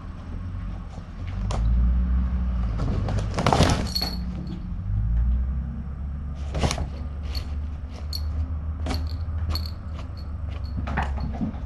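Fabric pop-up cat tent rustling and bumping close to the microphone, loudest about three and a half seconds in, followed by scattered small clicks and ticks over a steady low hum.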